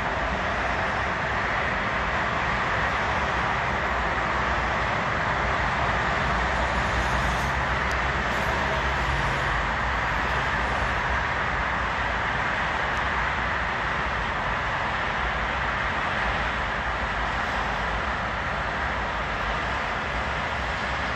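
Steady distant city traffic noise: an even rumble and hiss with no single vehicle standing out.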